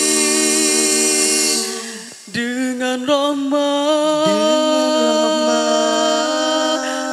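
An a cappella nasheed vocal group singing sustained chords in close harmony. The voices briefly fall away about two seconds in, then come back in with a wavering higher line over the held chords.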